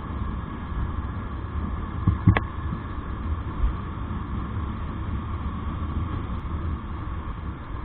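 Motorcycle engine running steadily while riding at road speed, with a steady rumble of riding noise. One sharp knock a little over two seconds in.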